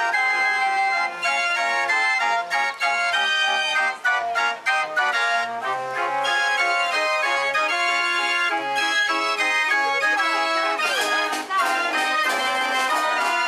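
Organ music playing a lively tune, with many steady notes over a regular run of short bass notes.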